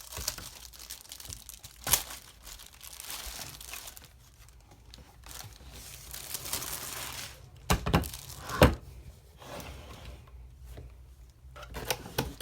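Packaging crinkling and tearing as a subwoofer is unpacked from its box, with a few sharp knocks, the loudest about two-thirds of the way through.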